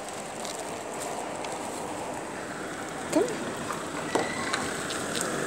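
Steady street background noise, with two short pitched calls about three and four seconds in.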